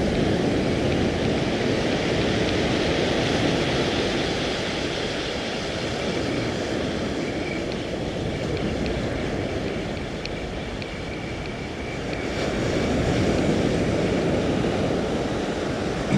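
Surf breaking and washing up a sand beach: a steady rushing noise that eases slightly, then swells again about three-quarters of the way through.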